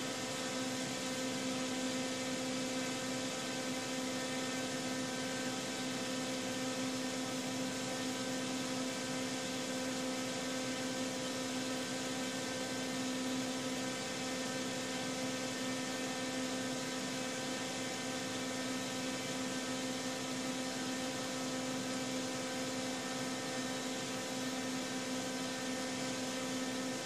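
Steady electrical hum, one unchanging pitch with a stack of overtones, over a constant hiss.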